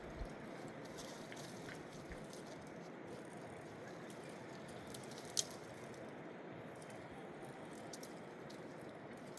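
Steady, even rushing noise with a few light clicks, and one sharper click about five seconds in.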